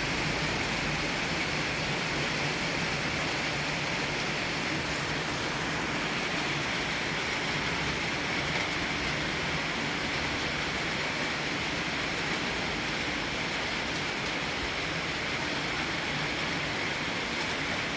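Steady rain falling, an even hiss that neither rises nor falls, with no thunderclap.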